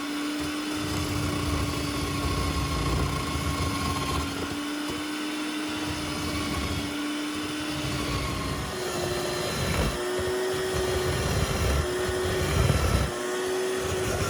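Wise electric coconut scraper's motor whining steadily with rough scraping as coconut is ground against its spinning serrated blade. About two-thirds of the way through the whine steps up in pitch and then stops and restarts several times in short runs.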